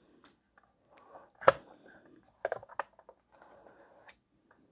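Plastic plates and an embossing folder for a small die cutting machine being handled and stacked: one sharp knock about a second and a half in, then a quick run of lighter clicks, with faint rustling between.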